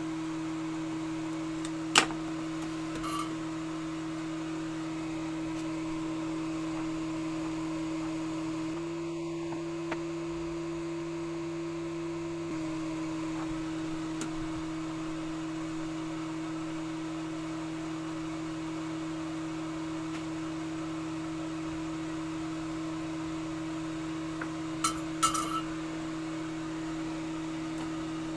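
A steady low electrical-sounding hum made of two pure tones, stepping slightly higher in pitch for a few seconds in the middle. A sharp click comes about two seconds in, and a few light clicks come near the end.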